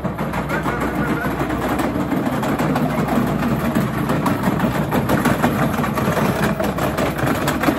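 Hard plastic wheels of a Little Tikes Cozy Coupe ride-on toy car rolling over paving stones as it is pushed along, a continuous rattle and rumble.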